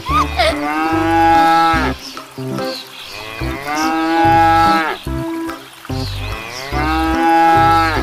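Toy cow playing recorded moos: three long moos of about a second and a half each, dipping in pitch at the end, over a tune with a stepping bass line.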